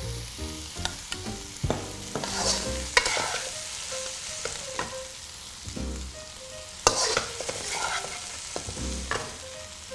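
Metal spatula scraping and knocking against a wok as hot stir-fried minced duck is scraped out into a glass bowl, with a light sizzle from the hot pan. It gives several sharp knocks.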